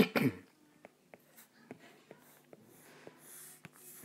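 Stylus tapping and stroking on an iPad Pro's glass screen during shading: faint scattered light taps and a soft brushing stroke about three seconds in.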